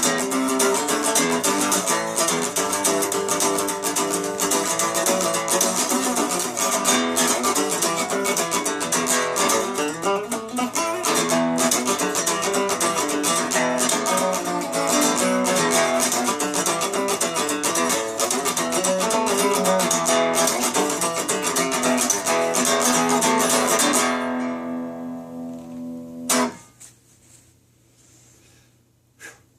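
Guitar played with quick, steady strummed and plucked strokes. Near the end the playing stops and the last chord rings on for a couple of seconds before being cut off sharply, leaving near quiet.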